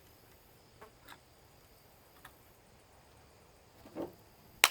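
Faint scattered clicks and taps of metal parts being worked on while an electric lawn mower motor is taken apart, with a soft knock about four seconds in and a sharp click near the end.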